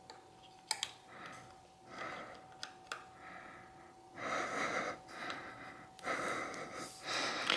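A person breathing hard in long surges while tightening a fork-bottom screw with an Allen wrench, with a few light metal clicks from the wrench on the screw.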